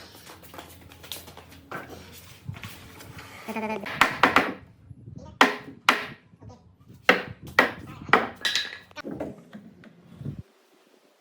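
A run of about eight sharp knocks, irregularly spaced and starting about four seconds in, typical of striking wood with a mallet or hammer; some ring briefly.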